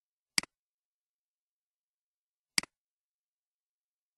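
Two sharp computer mouse clicks about two seconds apart, each a quick press followed by a softer release, as menu items are picked.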